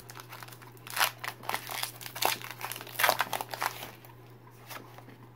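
Foil Pokémon booster pack wrapper being torn open and crinkled by hand, in quick clusters of crackling for the first few seconds, then quieter near the end as the cards come out.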